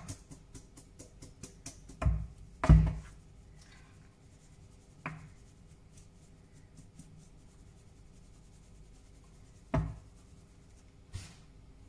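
Metal mesh sieve being tapped and shaken over a plastic mixing bowl to sift flour and cocoa, with soft rubbing and a handful of sharp knocks, the loudest about three seconds in.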